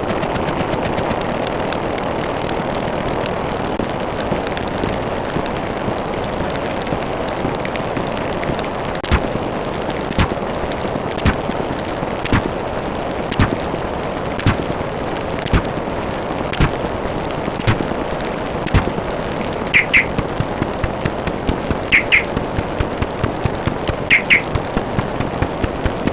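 Steady rushing noise with sharp cracks, about one a second from a third of the way in and coming thicker later. Short bird chirps come every two seconds or so near the end.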